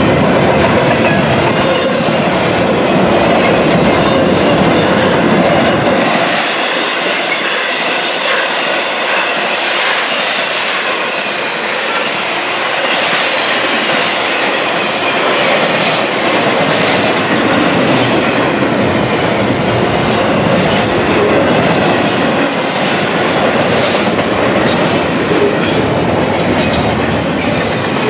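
Double-stack intermodal container cars of a freight train rolling past: a steady rumble of steel wheels on rail with clicking over the rail joints. The deep rumble thins out about six seconds in.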